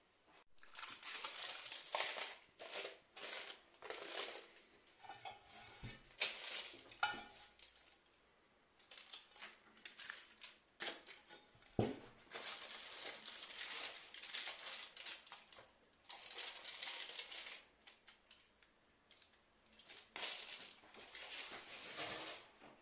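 Aluminium foil crinkling and rustling in repeated bursts as it is handled around a baked quesillo in its mould. Glass and metal dishes clink and knock now and then, with one sharper knock about halfway through as a glass plate is set down.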